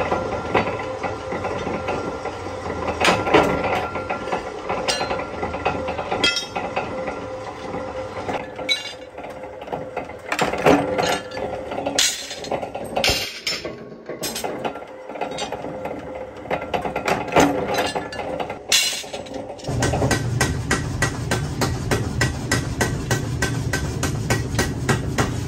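Belt-driven flywheel power press running with a steady hum, cutting leaf-spring steel into blade blanks with sharp metal clanks, followed by scattered clinks of steel pieces. Later a steady low rumble sets in with a fast, even ticking.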